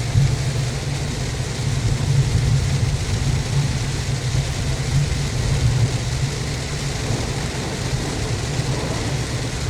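2015 Subaru WRX's turbocharged flat-four engine running with a steady low hum, under an even hiss of heavy rain on the car.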